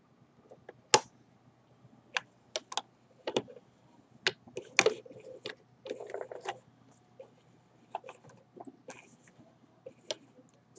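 Singer 128 vibrating-shuttle sewing machine, freshly cleaned and oiled, sewing slowly through scrap fabric: sharp mechanical clicks from the needle and shuttle mechanism come at uneven intervals, about one or two a second, with some fabric rustle.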